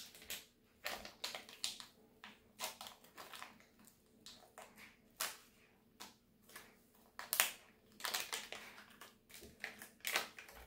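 A packet of MRE hot chocolate drink powder crinkling and crackling as it is handled and torn open by hand. It is an irregular run of sharp rustles, with the loudest crackle about two-thirds of the way through.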